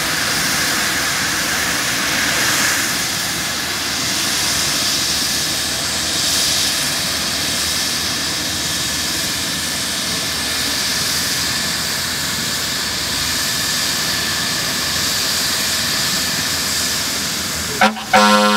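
Airbus EC135 helicopter running on the ground with its rotor turning: a steady turbine whine over a loud rushing hiss that swells slightly now and then. Near the end, two loud, pitched horn blasts cut in over it.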